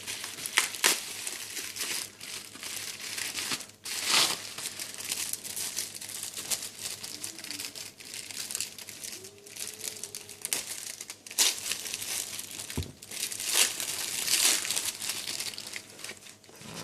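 Parcel packaging being crumpled, rustled and torn open by hand: a continuous crinkling with sharp crackles and louder bursts, stopping abruptly near the end.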